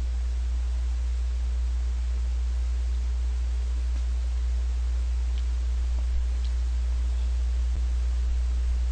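Steady low electrical hum with an even hiss from the recording chain, with a few faint clicks about two-thirds of the way through.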